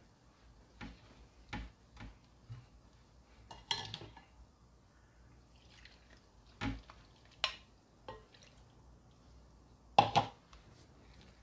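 A spatula stirring wet flour dough in a glass mixing bowl, with scattered knocks and scrapes against the glass, and liquid poured in from a jug. The loudest knocks come about ten seconds in.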